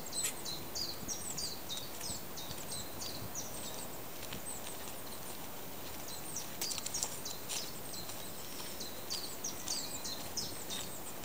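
Small birds chirping in quick series of short, high notes, in two spells: during the first two seconds, and again from about six and a half seconds until near the end. A steady outdoor hiss runs underneath.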